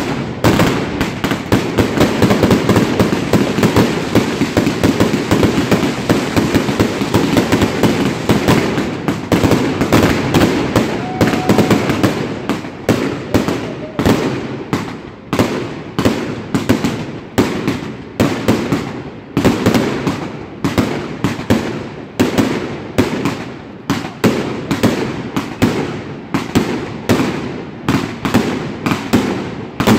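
Triplex TXB869 600-shot, 1.2-inch fireworks cake firing. A dense, rapid barrage of shots and bursts runs for the first dozen seconds or so, then it slows to separate bangs, about one or two a second, each fading out.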